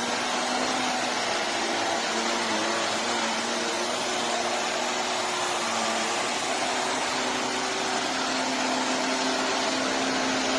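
Handheld anti-mite mattress vacuum running steadily, its motor hum wavering slightly in pitch over a constant rush of air.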